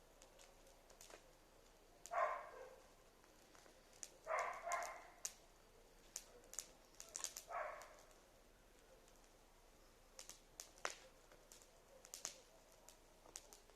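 Faint campfire crackling, scattered sharp pops, broken three times by short, louder animal calls: about two seconds in, a double call around four and a half seconds, and one more near seven and a half seconds.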